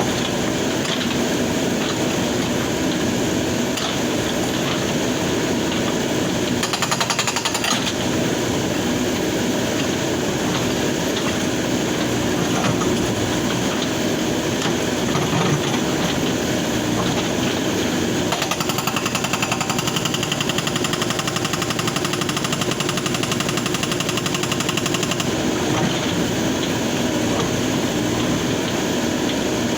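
Hydraulic breaker on a backhoe loader hammering rock with rapid, continuous blows.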